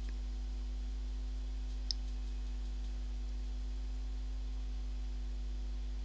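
Steady low electrical hum from the recording chain, with a single mouse click about two seconds in.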